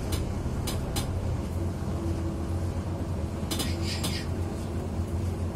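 Low, steady rumble of a bus in motion heard from inside, with sharp clinks and rattles a few times: a couple near the start and a cluster about three and a half seconds in.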